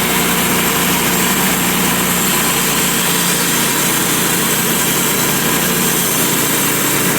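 Sawmill's gas engine running steadily under load as the mill cuts a slab from a big pine log.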